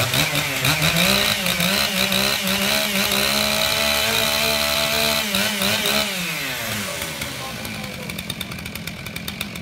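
STIHL chainsaw running at full throttle, its pitch climbing at the start and holding high and steady as it cuts; about six seconds in the revs fall away and it runs lower and rougher.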